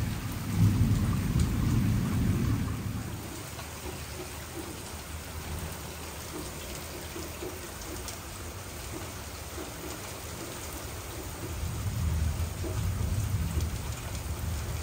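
Steady rain falling in a thunderstorm, with a low rumble of thunder in the first few seconds that fades, and another rumble building near the end.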